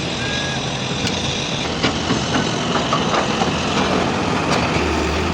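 Heavy diesel earthmoving machinery running steadily at a rock-loading site, with scattered sharp knocks and clanks through it.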